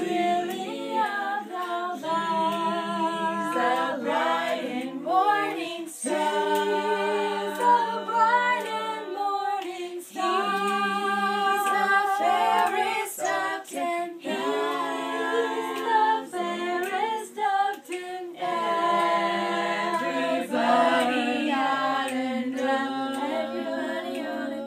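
Unaccompanied singing: voices carry a tune, holding notes and sliding between them.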